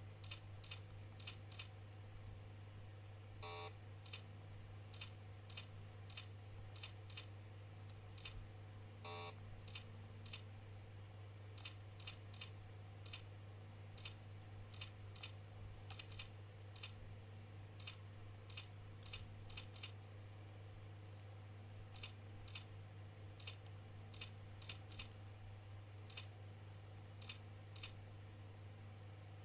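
Faint keystrokes on a computer keyboard, typed slowly and unevenly at about one or two keys a second, with two longer, heavier key clacks in the first third. A steady low hum runs underneath.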